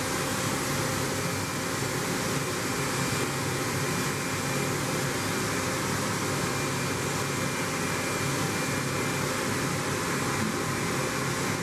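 A steady mechanical hum and hiss from a running machine, unchanging throughout.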